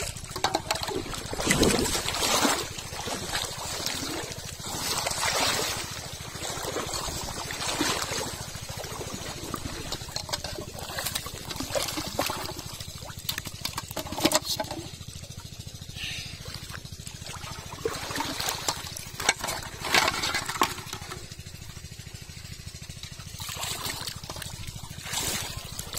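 Irregular splashing and trickling water as plastic-bottle fish traps are lifted out of shallow muddy water and shaken out, with fish splashing.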